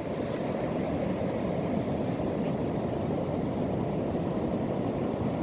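Ocean surf on a beach: a steady rush of breaking waves, with no single break standing out.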